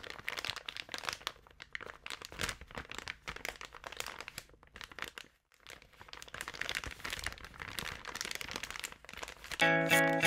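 Underwater crackling picked up by a diving camera: an irregular run of crackles and clicks, with a brief lull about five seconds in. Music with a steady pulsing beat comes in just before the end.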